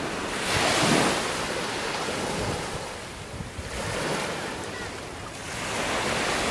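Small waves breaking and washing up a sandy beach, with one surge about a second in and another about four seconds in.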